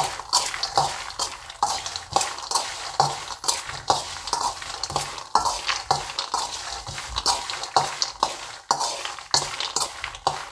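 A spoon stirring fried peanuts and spice mix in a large stainless-steel bowl. The dry peanuts rattle and scrape against the steel, with repeated sharp clinks of the spoon several times a second.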